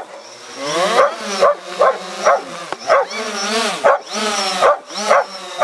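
Dog barking and yelping excitedly at a hovering DJI Phantom 4 drone, about two short pitched barks a second with a couple of longer drawn-out yowls among them. The drone's propellers give a faint steady high whine underneath.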